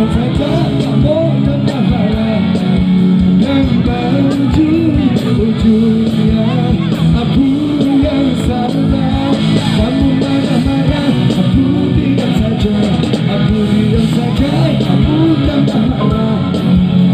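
A live rock band playing through a stage sound system, with electric guitars and a singer.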